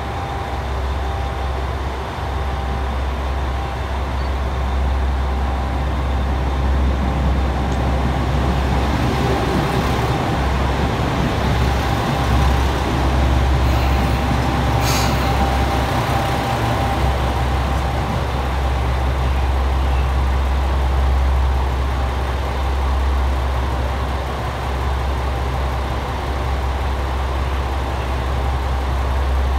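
JR Shikoku 2000 series diesel railcar pulling into the platform and slowing to a stop, its diesel engines running over a steady low rumble. There is one brief sharp sound about halfway through.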